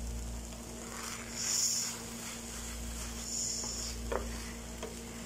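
Instant noodles sizzling in a hot frying pan while a wooden spatula stirs and turns them, with two louder swells of hiss, about a second and a half in and again around three seconds, and a few light taps near the end.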